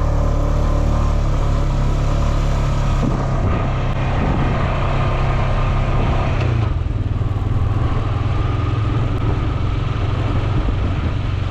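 Quad bike engine running under way on an off-road ride, its note shifting about three seconds in and again near seven seconds.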